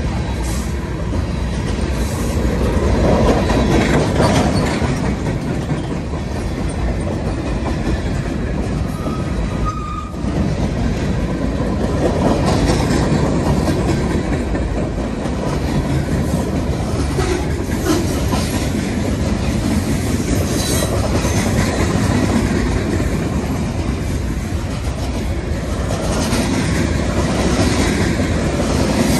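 Norfolk Southern freight cars rolling past at close range: a steady rumble with the wheels clicking over the rail joints, and some wheel squeal.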